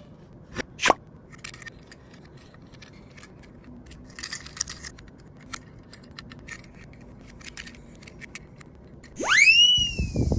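Light clicking and rattling of die-cast Tomica minicars on a toy slope track. There are two short, quick upward chirps about half a second in, and near the end comes the loudest sound, a whistle-like glide that rises fast and then sinks a little.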